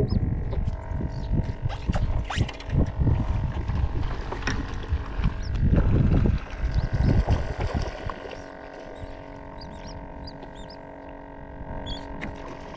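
Loud low rumbling and knocking of wind and handling on the microphone for the first several seconds, then quieter, with short high calls of seabirds flying over the water in the last few seconds.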